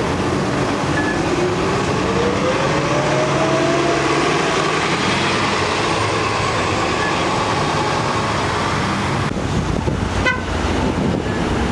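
City bus pulling away from the stop, with a whine that rises steadily in pitch as it accelerates over constant traffic noise. A short run of beeps comes near the end.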